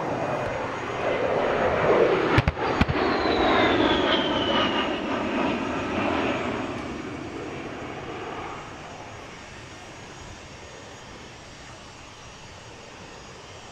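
XP-82 Twin Mustang's twin V-12 piston engines passing overhead: the engine noise is loud, with a whine that falls in pitch as the plane goes by, then fades away over several seconds. Two sharp cracks about two and a half seconds in.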